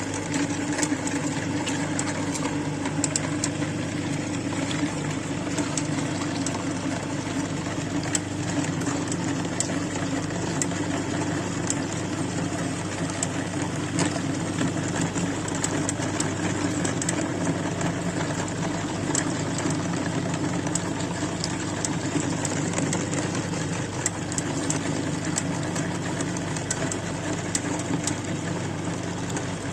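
Electric meat grinder running steadily with a motor hum, grinding tomatoes, with scattered sharp clicks and crackles from the crushing.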